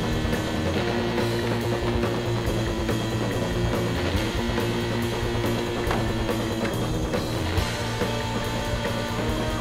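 Rock music with a drum kit and guitars, playing steadily.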